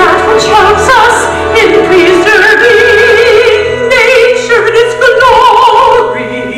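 A woman singing in an operatic style with wide vibrato over a sustained accompaniment; the voice stops about six seconds in, leaving the lower accompaniment.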